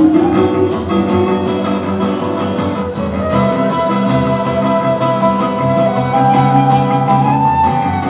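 Live acoustic band playing an instrumental passage: strummed acoustic guitar under a flute melody of long held notes that step upward through the second half.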